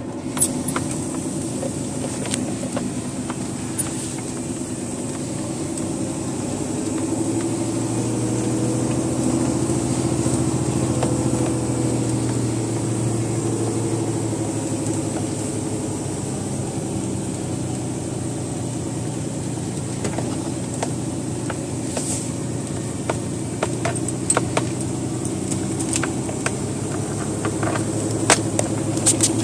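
Scania truck's diesel engine running steadily as the truck drives over a rough gravel quarry road, heard from inside the cab. The engine note firms up for a few seconds partway through and then settles. Scattered clicks and knocks from the cab rattling over the bumps come more often near the end.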